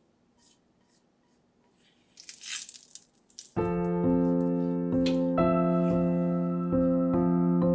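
Near silence, then a short burst of hissing, scraping noise, then piano music enters about three and a half seconds in, with held chords that change every second or so.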